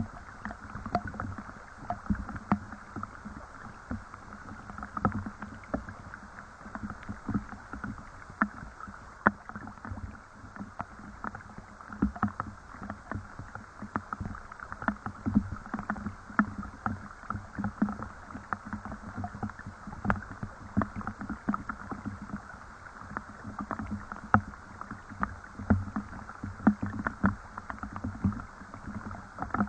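Rain falling, with irregular drips and small splashes ticking out of a steady hiss.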